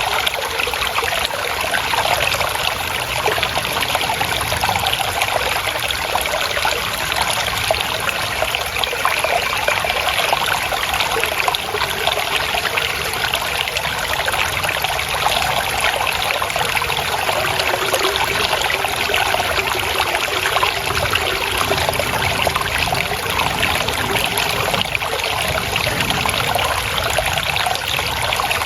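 Water trickling and splashing steadily in a small stream.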